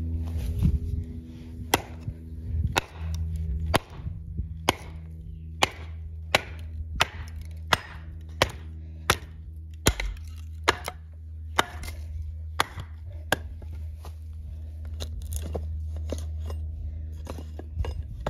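Repeated sharp chopping or striking blows, about one every second, over a steady low hum.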